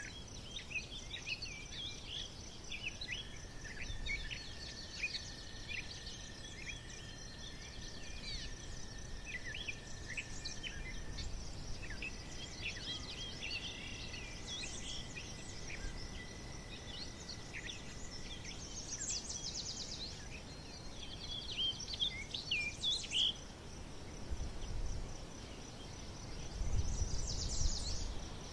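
Woodland birds chirping and calling, many short high notes, with long level whistles in the first half and quick bright trills near the end, over a thin steady high tone.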